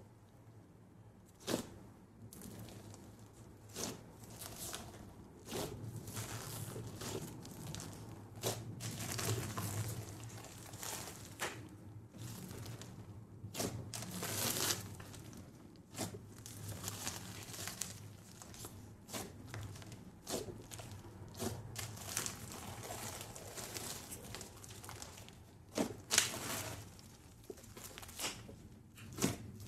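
Foam-bead slime (floam) being pressed, folded and stretched by hand, giving a soft, irregular crackling and crunching with scattered sharp pops as the beads and the stretching slime give way.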